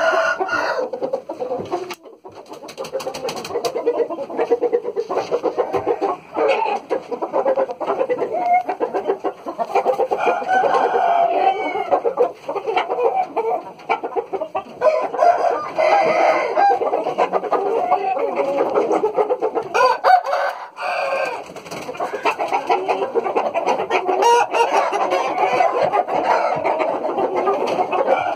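Young roosters and other chickens in pens clucking and crowing, many calls overlapping almost without a break.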